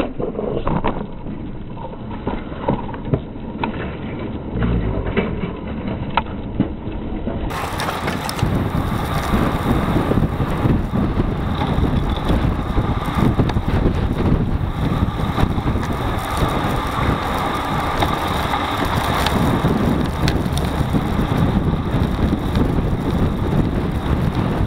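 Wind buffeting the microphone of a handlebar-mounted camera on a road bike riding in a pack, with road and tyre rumble and constant small rattles and knocks of the bike and mount. About seven seconds in the sound becomes fuller and a little louder.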